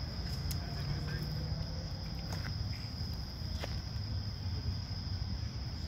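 Insects trilling steadily at one high pitch outdoors, over a low rumble and a few faint clicks.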